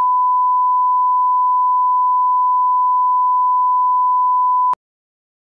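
Line-up reference tone played with colour bars: a single steady, pure, high beep that cuts off sharply near the end.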